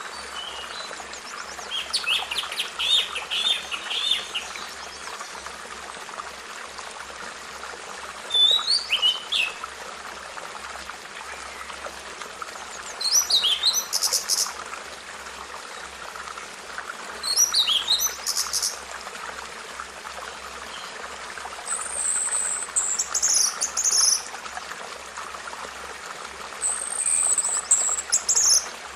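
Birdsong: about six short songbird phrases a few seconds apart, some rapid trills and quick falling notes, some higher drawn-out whistles near the end, over a steady background hiss.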